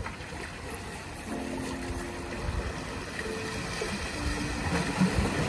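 Ocean water washing against the jetty rocks, with wind rumbling on the microphone. Faint droning tones come and go from about a second in.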